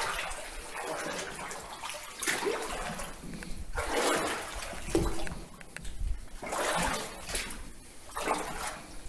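Footsteps wading through shallow water on a tunnel floor: about six splashing steps, roughly one every second and a half.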